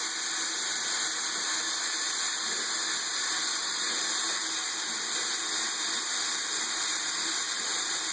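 Water tap running steadily into a sink, an even, unbroken hiss.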